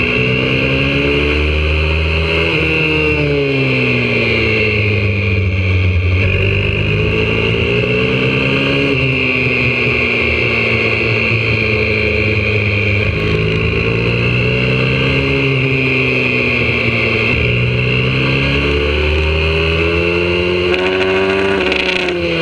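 YCF 125cc single-cylinder four-stroke pit bike engine, heard from on board, revving hard through the gears: pitch climbs repeatedly on the throttle, drops suddenly at shifts and falls away when backing off for corners.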